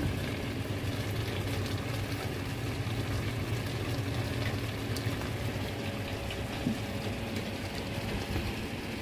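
Pork, liver and lungs simmering in their own oil in a pan, a steady fine crackle of bubbling, over the steady hum of a kitchen exhaust fan.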